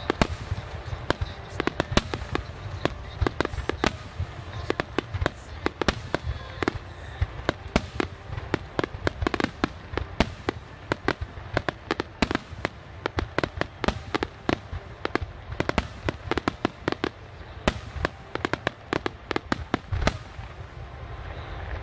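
A fireworks display: a dense, irregular barrage of sharp bangs and crackling reports from bursting shells, several a second with some much louder, over a steady low rumble.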